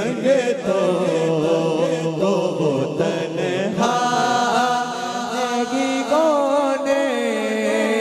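Male voices singing an Urdu naat through microphones, with no instruments heard. The melody is drawn out, and from about four seconds in it settles into long held notes that waver in pitch.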